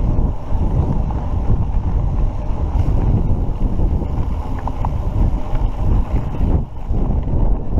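Wind buffeting the microphone while a mountain bike rides along a dirt road: a loud, steady rumble strongest in the low end, with no clear pitch.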